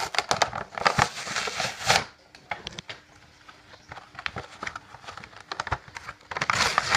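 Plastic toy packaging and its cardboard backing being pried and peeled apart by hand: a dense run of crackles and clicks for about two seconds, then scattered soft clicks, and another loud crackling burst near the end.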